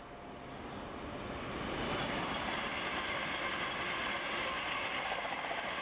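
Train passing along a station platform. Its running noise builds over the first two seconds and then holds steady.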